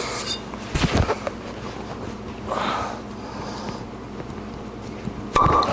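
A cork being worked out of a wine bottle with a hand-forged corkscrew: sharp nose breaths from the effort and a few short knocks or creaks, with a louder squeak-like burst near the end.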